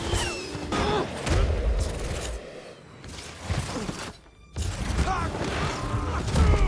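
Superhero-film fight sound effects: a rapid run of hits, thuds and whooshes with short gliding whines over them. There is a brief lull about four seconds in, and then the blows start again.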